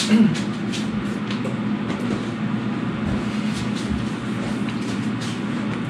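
Steady low hum with hiss, and a few faint light knocks.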